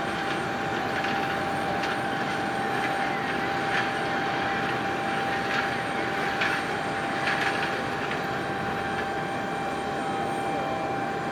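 Steady airport apron noise: a constant mechanical hum with a steady high whine, and a few faint clicks.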